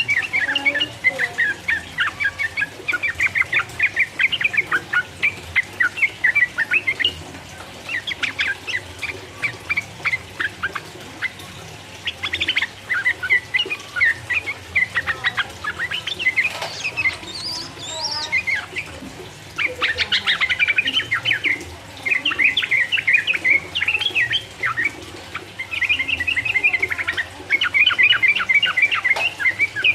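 Yellow-vented bulbul (trucukan) singing its long, rapid 'ropel' song: runs of quick bubbling notes lasting several seconds each, broken by short pauses.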